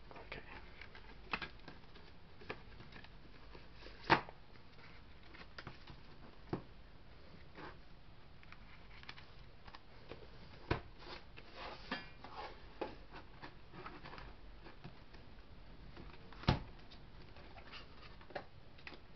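Cardboard box-set packaging and disc cases being handled: scattered light taps and clicks, with a short rustle of card about twelve seconds in and the loudest knocks about four and sixteen seconds in.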